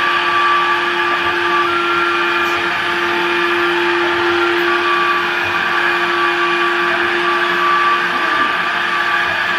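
Suction window-cleaning robot running on a glass shower panel: the steady whine of its vacuum fan motor as it crawls across the glass.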